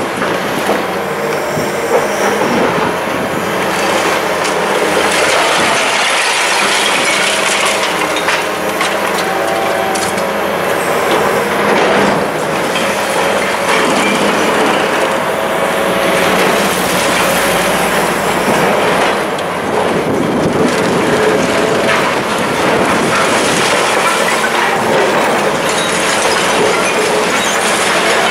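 High-reach demolition excavator's hydraulic crusher jaw tearing through the concrete floors and walls of an apartment block: continuous crunching and grinding of concrete with metallic squeals, knocks of falling rubble, and the machine's engine running underneath.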